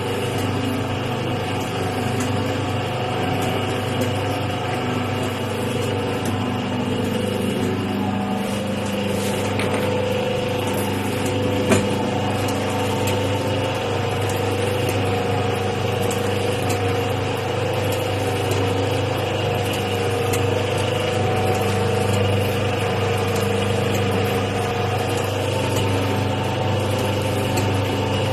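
Automatic cooking-oil packing machine running: a steady mechanical hum with faint scattered clicks and one sharper click about twelve seconds in.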